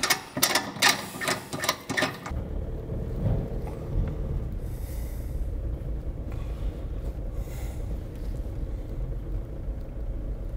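Sharp metallic clicks and knocks as wheel bolts are fitted to a car's wheel hub, then, from about two seconds in, the steady low rumble of a car engine running.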